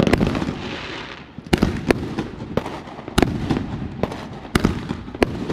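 Fireworks going off: about eight sharp bangs at uneven intervals. The first bang is followed by about a second of crackling hiss.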